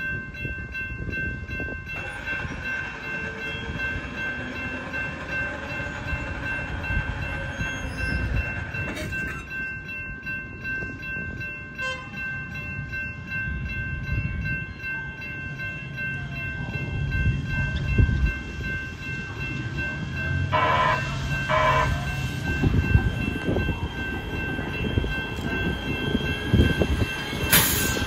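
Grade-crossing warning bells ringing steadily while a light rail train approaches. About twenty seconds in the train sounds two short horn blasts. Its low rumble grows as it reaches the crossing near the end.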